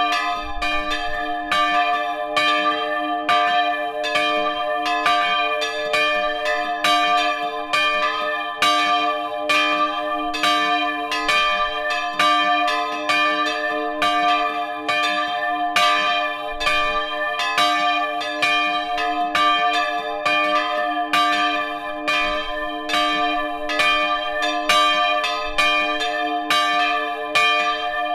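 Church bells swinging and ringing together, heard up close in the belfry: a steady run of overlapping strokes over a sustained hum of ringing tones.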